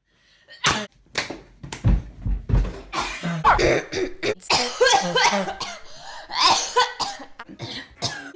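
A young woman coughing in a long fit: one harsh cough after another for several seconds.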